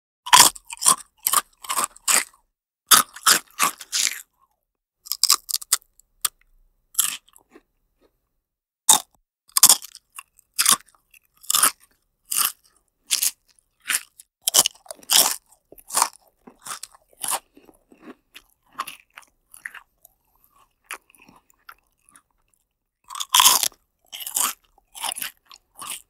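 A person chewing crunchy food in a run of sharp crunches, about two a second at first. The crunches thin out and grow quieter through the middle, then come back in a louder flurry near the end.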